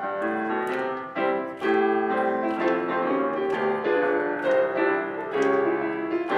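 Piano playing a short instrumental passage between the sung verses of a children's choir song: a run of separate notes and chords.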